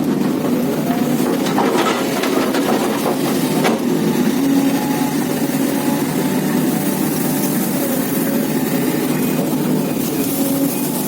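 Heavy diesel engine running steadily, with several knocks and clatter in the first four seconds.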